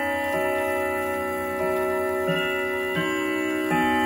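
Howard Miller Jennison triple-chime wall clock playing its quarter-hour melody: the hammers strike the chime rods about five times, each ringing note carrying on under the next.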